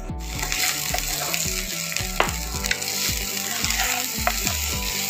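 Cauliflower, onion and green chillies sizzling as they stir-fry in hot oil in a kadhai. A wooden spatula scrapes and taps against the pan a few times.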